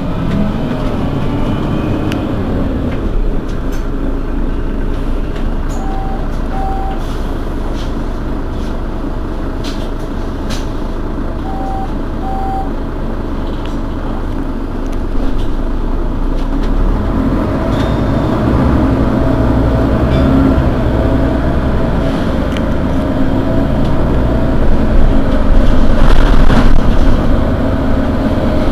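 Mercedes-Benz Citaro city bus's diesel engine idling steadily at a stop. Twice, a pair of short beeps sounds. In the last third the engine noise grows louder and busier.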